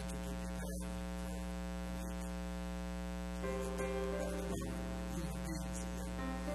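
Steady electrical mains hum with a ladder of overtones. A soft sustained musical tone comes in about three and a half seconds in.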